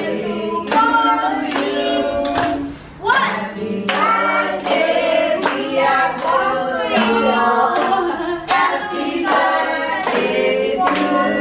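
A small group of voices singing a birthday song together, with hands clapping along in time, about two claps a second. There is a brief break in the singing about three seconds in.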